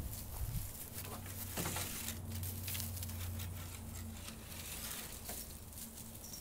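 Rustling and crackling of footsteps through grass and mulch, with handling noise from a handheld camera, over a low steady hum.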